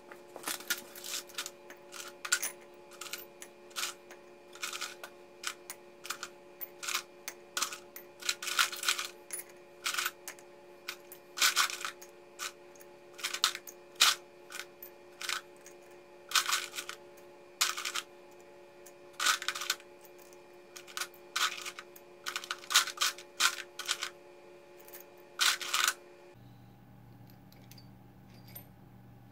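Scrap brass fittings clinking as they are dropped piece by piece into a crucible: many irregular sharp metallic clinks and knocks over a steady hum. The clinking stops near the end.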